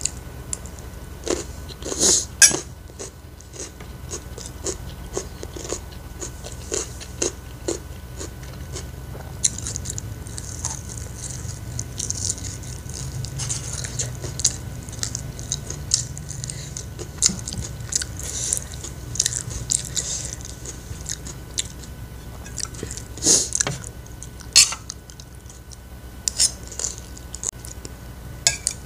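Close-up chewing, biting and mouth sounds of a person eating a meal of fried rice, with many short wet clicks. A few louder sharp clicks, about 2 s in and again near 23 to 25 s, fit a metal spoon knocking on a ceramic plate.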